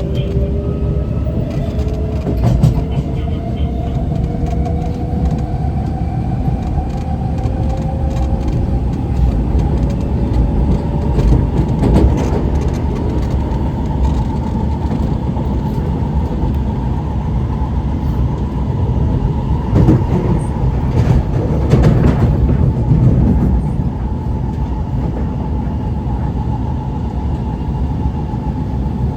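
Inside the carriage of an Alstom Movia R151 electric train under way: the traction motors whine in rising tones as the train picks up speed over the first ten seconds or so, then hold a steady pitch over the rumble of the wheels on the rails. A few short knocks come through about twelve seconds in and again around twenty to twenty-three seconds.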